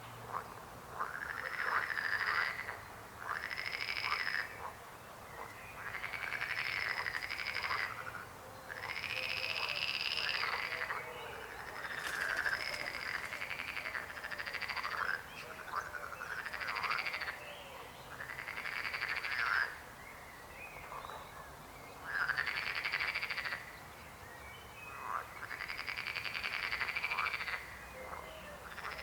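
Frogs croaking in a chorus: drawn-out, rising-and-falling croaks about a second or more long follow one another every couple of seconds, some overlapping.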